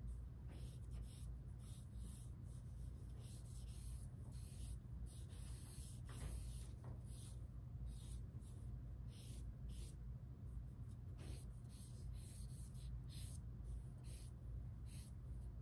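Pencil strokes scratching on drawing paper as a bottle outline is sketched: many short, uneven strokes in quick runs, over a low steady hum.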